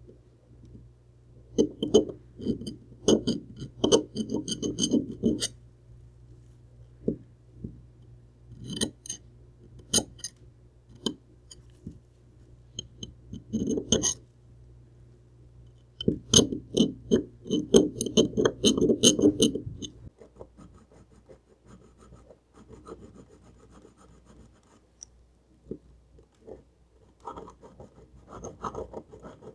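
Proxxon rotary tool running with a steady low hum, its bit grinding off casting flash from the metal HO locomotive shell in repeated short bursts. The motor stops about two-thirds of the way through, and lighter scraping and rubbing follow.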